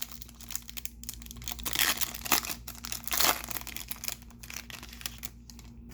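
Foil wrapper of a baseball card pack crinkling and tearing as it is pulled open by hand, an irregular run of crackles and rustles with a couple of louder tears.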